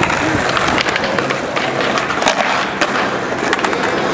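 Skateboards rolling over a paved stone-tile plaza: a steady wheel rumble dotted with frequent sharp clicks.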